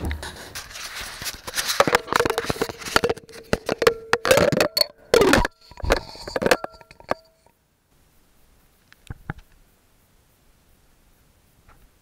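Handling noise: the camera is grabbed and moved, its body rubbing and knocking against hands and hard objects, with loud clatters around the middle. About seven and a half seconds in it stops suddenly, leaving only faint, muffled quiet with a couple of small clicks.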